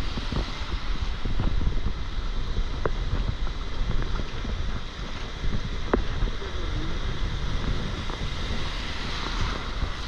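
Small ocean waves breaking and washing over the shallow shore, under heavy wind buffeting on the microphone.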